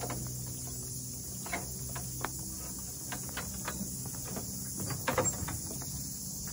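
A steady, high-pitched chorus of crickets and other insects, with scattered footsteps knocking on the wooden boards and steps of a suspended treetop walkway. The loudest cluster of steps comes about five seconds in.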